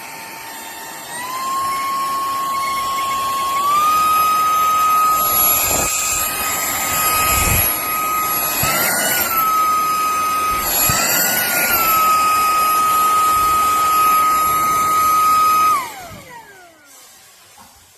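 CUGEFRE cordless handheld vacuum's motor running with a high whine that steps up in pitch twice in the first four seconds as the power setting rises. The pitch briefly rises twice near the middle, and the motor winds down with a falling whine near the end as it is switched off.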